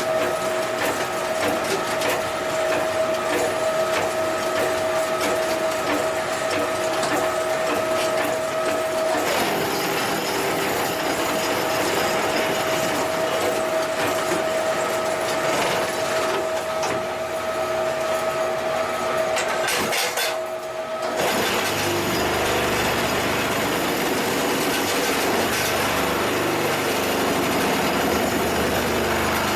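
QTJ4-25 semi-automatic concrete block machine running: a steady mechanical hum with frequent rattling and clanking. About two-thirds of the way through it briefly drops, then changes to a deeper, pulsing vibration.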